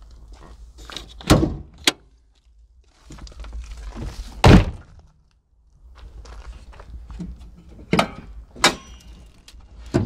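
Several heavy thunks and clunks from a 2006 Chevy Silverado pickup's door and hood latch being worked as the hood is released and raised. There are about six separate knocks, the loudest about halfway through.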